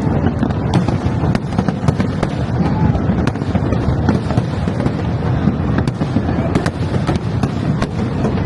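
Aerial fireworks going off continuously: a dense, steady din of bursts with frequent sharp cracks at irregular intervals.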